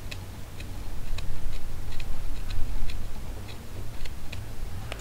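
Carving knife taking short shaving cuts in birch wood, each cut a crisp little click, about a dozen at an uneven pace of two or three a second, over a steady low rumble.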